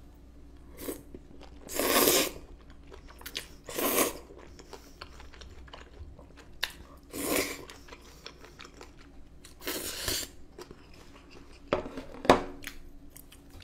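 Cream-sauce noodles being slurped and chewed: about five loud, wet slurps a couple of seconds apart, with quieter chewing between.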